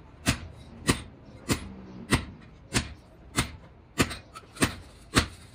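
Hammer striking the steel lever handle of a screw-type wheel stud press clamped on a brake drum hub: nine sharp metal blows at an even pace, about one every 0.6 seconds, each with a short ring, driving the press to shift a stud.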